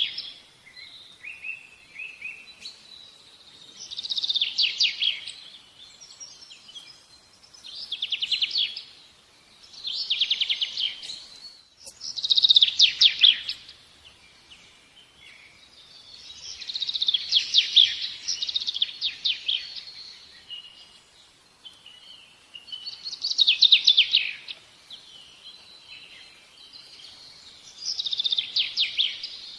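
A small songbird singing: about seven short, fast trilling phrases a few seconds apart, with softer chirps between them.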